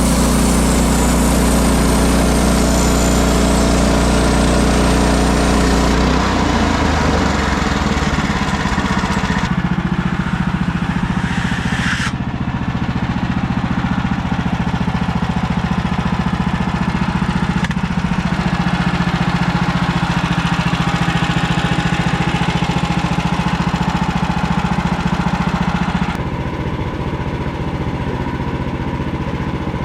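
Small gasoline engine of a Woodland Mills HM130 Max portable band sawmill running steadily, its note shifting a few times as the band blade works through hard maple.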